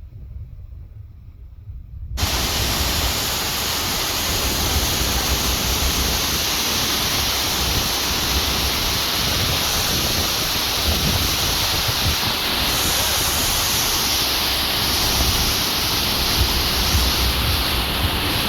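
Steady loud rush of a waterfall pouring into the sea, cutting in suddenly about two seconds in, with wind buffeting the microphone underneath.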